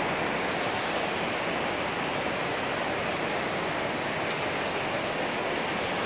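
Latefossen waterfall and the white-water river below it, rushing steadily.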